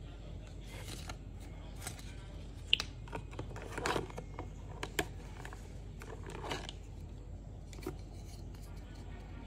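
Handling noise from unpacking a head torch: a paper booklet, a charging cable and a clear plastic box being handled, giving scattered light clicks and short rustles, with one sharp click about three seconds in.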